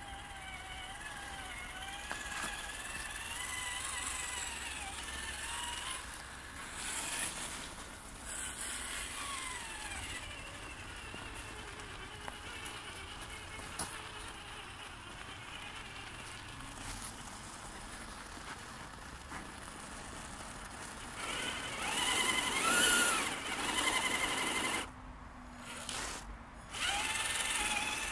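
Electric motor and gear drive of a Traxxas TRX-4 Ford Bronco RC crawler whining, its pitch rising and falling with the throttle as it crawls over sand. The whine is loudest in a surge about three-quarters of the way through and cuts out twice briefly near the end.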